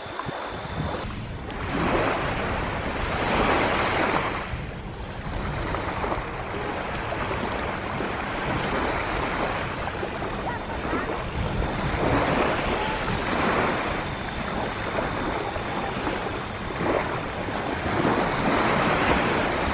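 Sea surf washing onto the beach, swelling and easing every few seconds, with wind buffeting the microphone.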